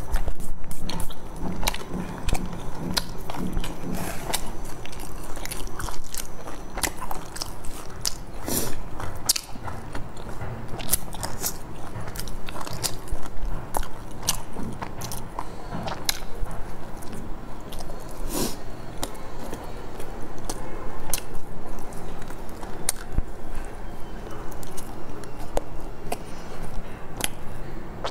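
Close-miked chewing and biting of soft bread filled with red beans under a sesame-seed crust: wet mouth sounds with many irregular sharp clicks and crackles.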